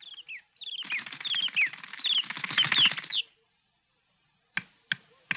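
Small birds chirping in a burst of quick, falling chirps, then a few sharp taps near the end.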